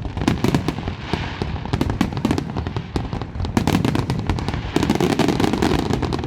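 Fireworks display going off in a dense, continuous barrage of rapid pops and bangs, many each second.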